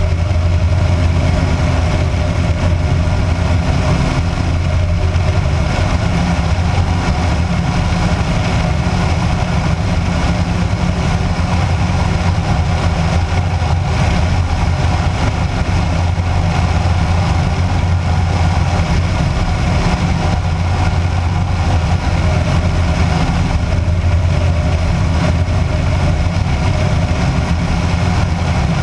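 Kitfox light aircraft's engine and propeller running steadily in flight: a loud, even drone with a strong low hum that holds constant throughout.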